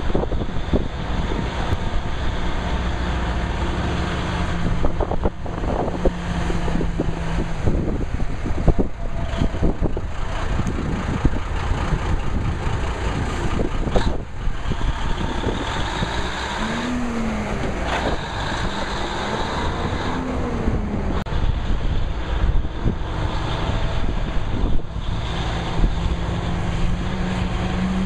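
Cummins diesel engine of an M814 5-ton 6x6 military cargo truck running, revved up and back down twice partway through. Near the end the engine pulls under power as the truck drives off.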